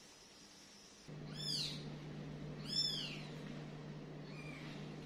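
Very young kitten mewing: three high-pitched mews about a second and a half apart, the last one faint, over a steady low hum.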